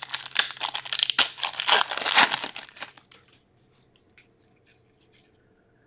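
Foil wrapper of an Upper Deck SP Authentic hockey card pack crinkling and tearing as it is ripped open by hand, a dense crackle lasting about three seconds.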